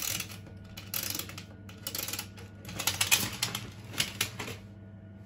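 Short bursts of rapid mechanical clicking, about one burst a second, over a steady low hum.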